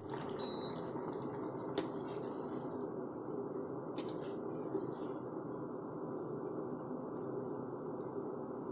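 Fish curry simmering in a pan on an induction cooktop with a steady hiss. A short beep from the cooktop's control button comes about half a second in. A metal spoon clicks against the pan twice while stirring, near two seconds and four seconds in.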